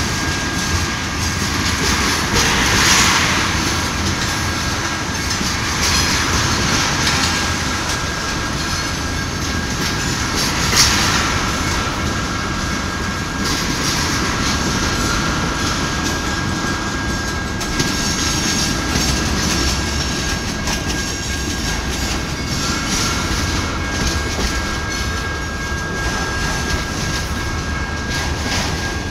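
Freight cars of a slow-moving freight train rolling past, wheels clattering over the rail joints and the diamond with a steady rumble. A thin, steady high tone runs through it, and there is one sharp bang about eleven seconds in.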